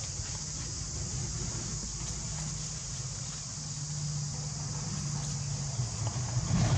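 Steady high-pitched drone of an insect chorus, with a low hum beneath it and a short, louder low sound near the end.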